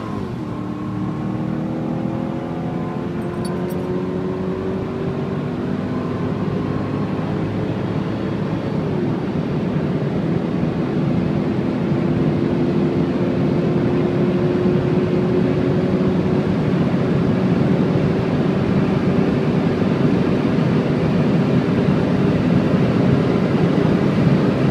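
Mercedes-Benz E55 AMG's supercharged V8 accelerating hard, heard from inside the cabin over heavy road and wind noise. The engine note drops with a gear change at the start and again about nine seconds in, then climbs slowly and steadily.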